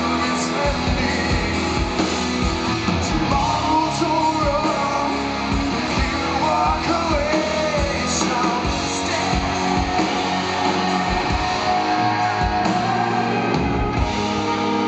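Live rock band playing, with electric guitar over bass and a steady drum beat.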